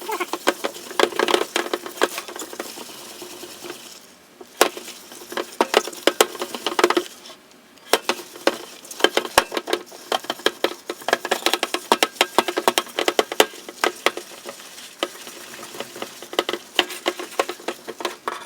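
A tri-ply stainless steel pot being scrubbed by hand with detergent to strip its leftover polishing compound: fast scratchy scrubbing strokes in bursts, with brief pauses about four and seven seconds in.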